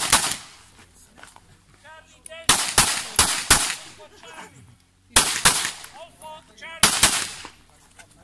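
Rapid 9 mm shots from a Glock 17 pistol mounted in a Hera Arms Triarii carbine chassis, fired in quick strings of two to four with short pauses between them.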